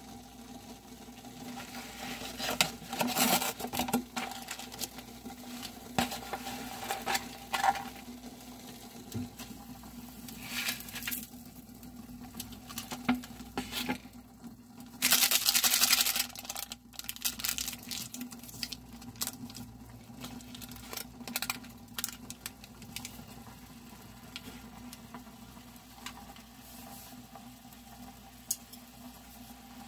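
Crinkling and rustling of instant-noodle packaging and a foil seasoning sachet, with scattered clicks and a louder rustling burst of about a second near the middle. Under it runs a steady low hum, with water heating in a glass saucepan on an electric hob.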